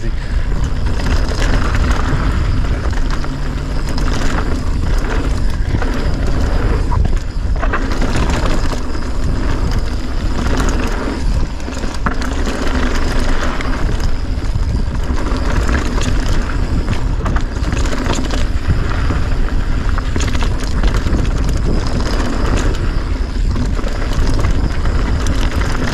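Wind rushing over the action-camera microphone at riding speed, with mountain bike tyres rolling on packed dirt and gravel and sharp rattles and knocks from the bike over bumps.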